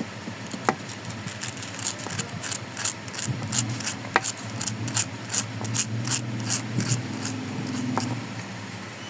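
Hand work on a small electric motor's parts: quick repeated scratchy strokes, about two or three a second, with a few sharper clicks, and a low steady hum through the middle.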